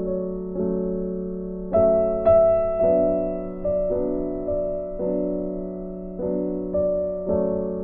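Background music on a soft, piano-like keyboard playing slow notes and chords, a new one struck about every half second and each fading away.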